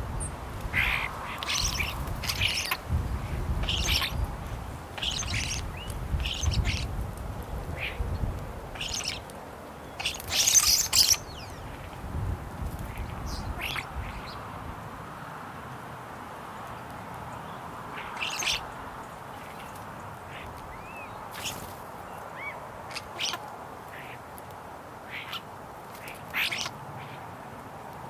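Common starlings calling at a feeder: scattered short calls and clicks with a few whistled glides, coming irregularly and loudest in a burst about ten seconds in. A low rumble lies under the first third.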